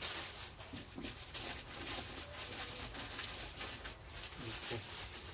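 Plastic bags and wrapping rustling and crinkling as wrapped goods are handled and lifted out of a cardboard box, a steady crackle of many small ticks.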